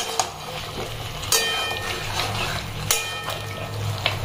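Chicken being stirred in masala in a pan: a metal utensil knocks against the pan several times, the metal ringing briefly after the knocks at about a second and a half and about three seconds in, over a steady frying hiss.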